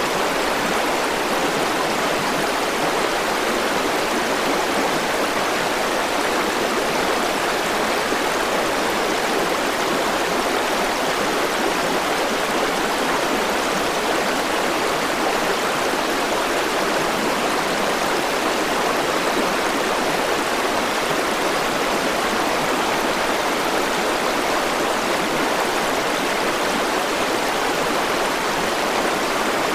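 River water flowing and rushing over stones, a steady, unbroken rush.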